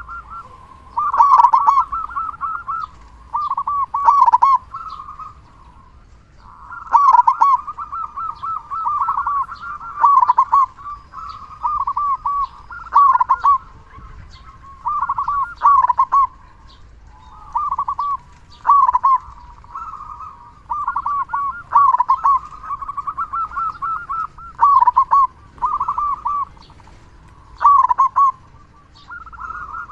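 Local zebra dove (perkutut) cooing in frequent, strong song: bursts of rapid, stuttering coos, one phrase every one to three seconds with short pauses between.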